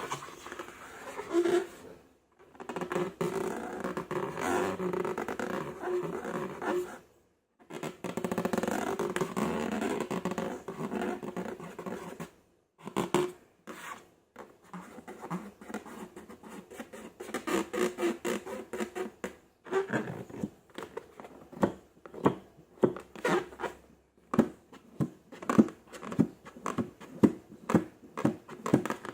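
Slime being handled: sticky squishing and crackling, broken by a few short pauses, then turning into a quick run of sharp, wet clicks and pops from pressing and poking.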